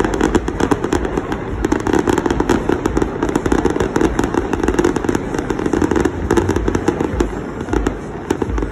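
Aerial fireworks display going off: a dense, rapid barrage of pops and crackles with deep booms among them, easing slightly near the end.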